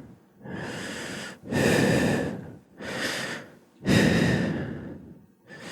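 A man's heavy, laboured breathing: four long breaths, each about a second long with short pauses between. This is the strained breathing of a man with long-standing wheezing.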